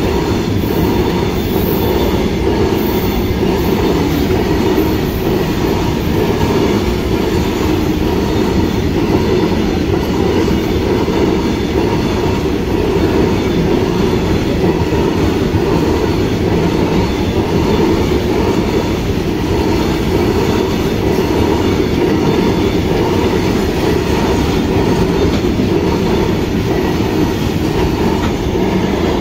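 Covered goods wagons of a long freight train running past at speed close by: a loud, steady noise of steel wheels on the rails.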